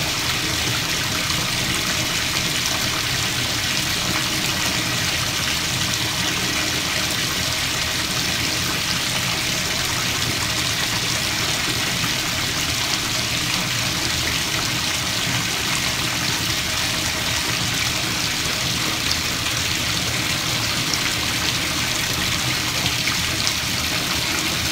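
Bathtub tap running steadily, its stream pouring into a tub of foamy bath water.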